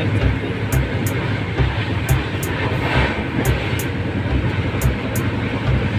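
Running noise of a passenger train heard from inside the coach: a steady low rumble with uneven thumps and rattling.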